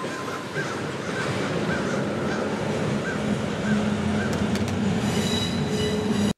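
Rear cars of a long double-stack intermodal container train rolling past: steel wheels running on the rails, with wheel squeal that grows louder near the end. The sound cuts off suddenly just before the end.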